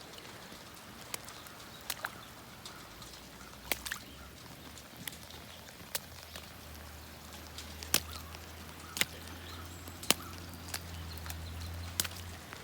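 Big raindrops striking close by as sharp, irregular taps, roughly one every second or so, over a faint hiss of rain. A low steady rumble comes in about halfway and stops just before the end.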